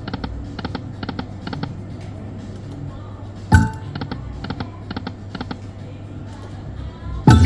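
Dyna Blitz Link slot machine game sounds: an electronic jingle with runs of quick, evenly spaced ticks as the reels spin and stop, over a steady low hum. A loud thud about halfway through and again near the end.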